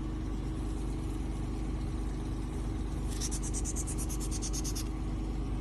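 RF-and-vacuum facial beauty machine running with a steady hum and a constant tone. In the second half, for nearly two seconds, a rapid high hissing pulse repeats about six times a second, matching the handpiece's fast suck-and-release suction cycle.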